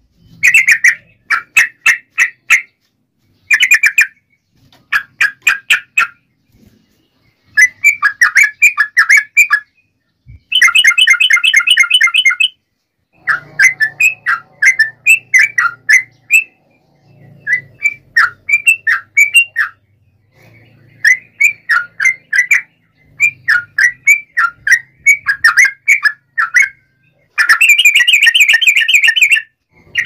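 Yellow-vented bulbul (trucukan) singing in an agitated, fighting mood: rapid bursts of bubbling, chattering notes, phrase after phrase, separated by short pauses.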